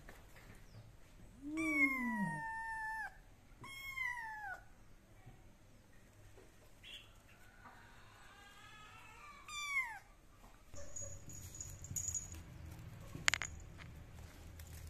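A kitten meowing: four drawn-out meows in the first ten seconds, the first two loudest and the third faint. Near the end a single sharp click.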